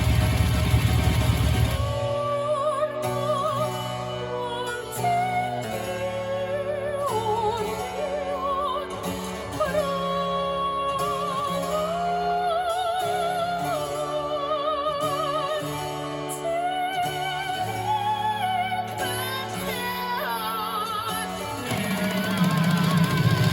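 Recorded music: operatic singing with a wide vibrato over sustained low accompanying notes. A dense, bass-heavy passage opens the stretch and returns near the end.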